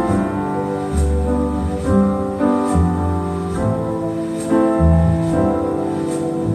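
Piano-led music with a bass line and a steady light beat, played back through B&W CM9 floorstanding speakers driven by an Accuphase E-206 amplifier.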